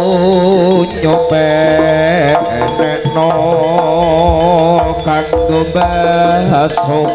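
Live Javanese jaranan band playing: kendang hand drums and gamelan percussion under a wavering, sliding melody line.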